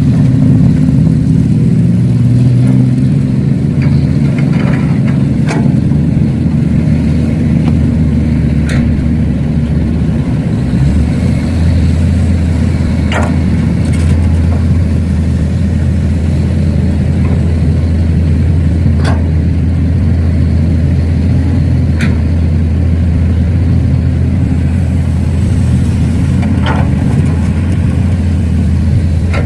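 Large engine running steadily at a constant speed, with sharp knocks now and then.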